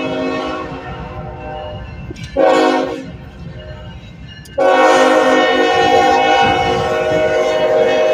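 Nathan K5HL five-chime air horn on a lead diesel locomotive, sounding over the low rumble of the passing train. A held chord fades out, a short blast follows about two and a half seconds in, then a long blast starts about four and a half seconds in and holds: the end of the grade-crossing signal of long, long, short, long.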